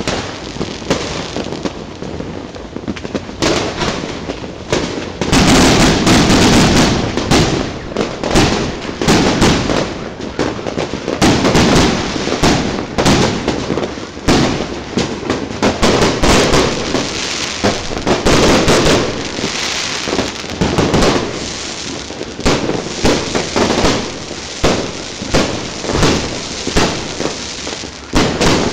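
Aerial fireworks going off in quick succession: many loud bangs and pops overlapping, with a dense, loudest stretch about five seconds in.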